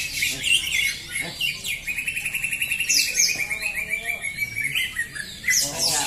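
Several caged green leafbirds (cocak hijau) singing at once, a busy mix of quick chirps and whistles, with a long fast rattling trill through the middle.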